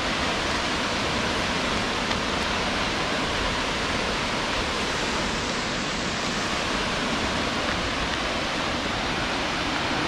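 Steady rush of Ramboda Falls, a tall waterfall pouring down a rock face, heard as an even, unbroken hiss of falling water.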